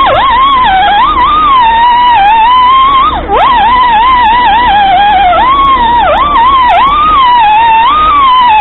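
Small whiz-wheel rotary tool grinding down a fresh weld on a chainsaw muffler. Its high whine wavers and repeatedly drops sharply in pitch, then recovers, as the wheel is pressed into the metal. The deepest drop comes about three seconds in.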